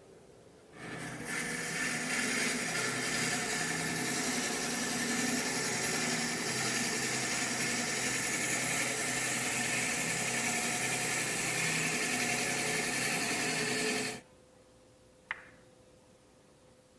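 Jet 1221VS lathe switched on and spinning up, then running steadily while a drill bit in a tailstock chuck bores through a cocobolo pen blank; the noise stops abruptly about fourteen seconds in. A single short click follows about a second later.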